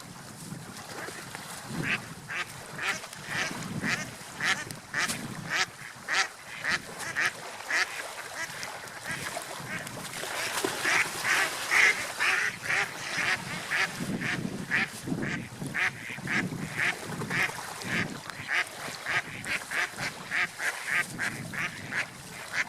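Ducks quacking in a steady run of short calls, about two or three a second, over a low background hiss.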